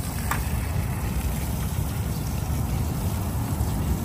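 Water from a garden hose splashing steadily onto leafy plants: a constant rushing hiss with a heavy low rumble.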